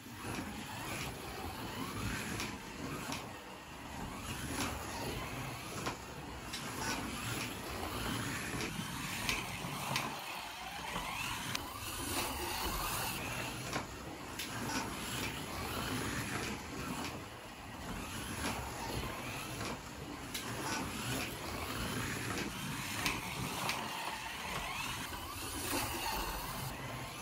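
F1 slot car lapping a plastic slot-car track: its small electric motor whines, rising and falling in pitch as it speeds up and slows for the corners, over a steady rattle of the car running in the slot.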